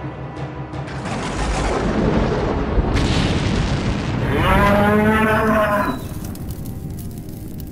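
Cartoon explosion rumbling for a few seconds from about a second in, with a sharp crack near its middle, followed by a buffalo bellowing loudly for about a second and a half.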